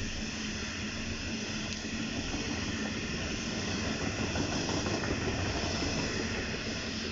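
A train running through: a steady rail rumble and hiss with a steady low hum, a little louder around the middle and easing off near the end.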